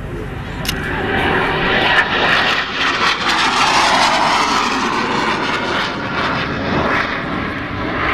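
Lockheed F-117A stealth fighter's two General Electric F404 turbofan engines during a low pass overhead. The jet noise swells about a second in and is loudest for a few seconds as the aircraft goes by, with a whooshing sweep that dips and rises in pitch, then eases slightly as it pulls away. Heard through a consumer camcorder's microphone.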